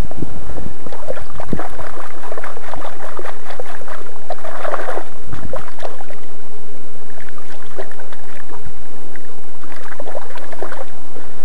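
Shallow river water sloshing and splashing right at the microphone, with irregular clicks and a few low knocks, busiest about five seconds in and again near the end.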